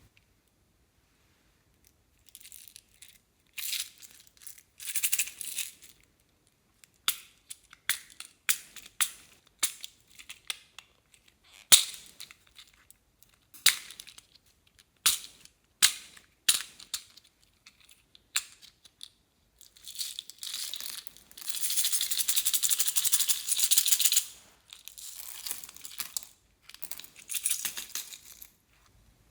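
Slime being kneaded and stretched by hand, giving sharp sticky clicks and short bursts of crackling pops. A longer run of dense crackling comes about two-thirds of the way through.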